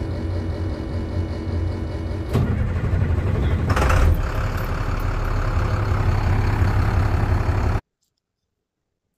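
International 4300 truck engine running steadily, with a sudden change about two seconds in and a louder burst of noise near four seconds. The sound cuts off suddenly near the end.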